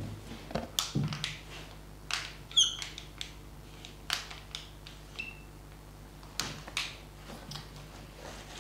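Marker pen scratching on a glass lightboard in short writing strokes, with a high squeak about two and a half seconds in and a shorter one about five seconds in.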